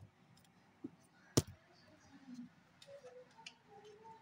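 Two sharp clicks about a second and a half apart, the second the louder, with a fainter knock between them, over a quiet room background.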